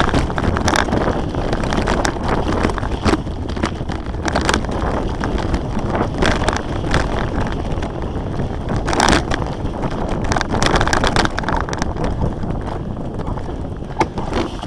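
Wind buffeting the microphone over the rumble of mountain bike tyres on a dirt trail at speed, with frequent sharp knocks and rattles from the bike over bumps.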